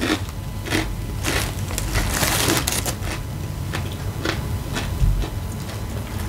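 Close crunching of tortilla chips being chewed, as irregular crackles, densest about two seconds in.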